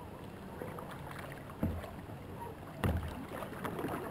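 Water lapping and splashing around sea kayaks, with two low knocks about a second apart.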